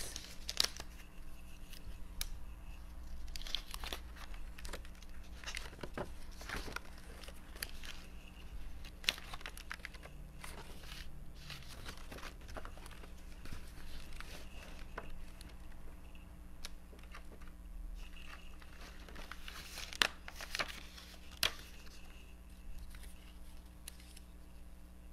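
Paper rustling and crinkling as sheets of die-cut paper pieces are handled and pieces are pressed out and lifted off, with scattered light clicks and taps. There are a couple of sharper taps near the end, over a faint steady hum.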